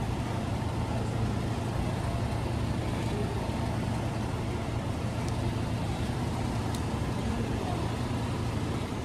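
Steady low hum under constant background noise, with no single event standing out.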